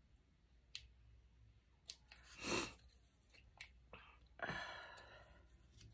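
Faint handling noises of paper craft supplies: a few light clicks and two soft rustles.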